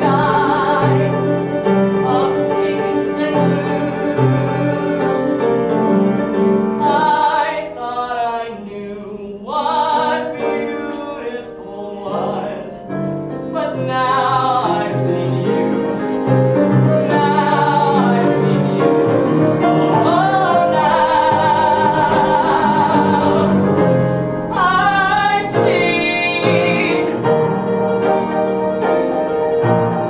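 A musical theatre song performed live: singing voices over steady instrumental accompaniment.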